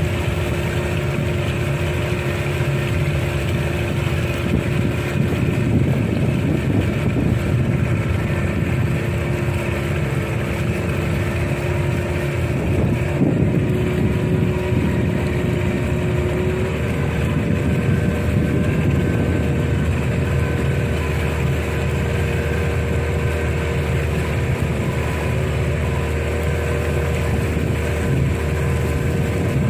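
The engine of a small wooden-style river long boat running steadily under way. Its pitch steps up slightly about halfway through as the throttle opens a little.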